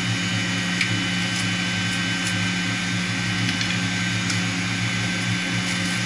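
Steady hum of the running centrifugal water pump and chiller plant machinery, a constant low drone with a faint high whine, with a few light clicks from handling the strainer housing.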